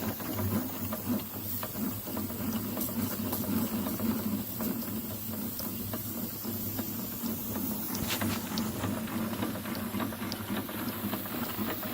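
Small model vertical steam engine running on live steam from its boiler: a rapid, irregular clatter of small ticks over a steady steam hiss and a low hum.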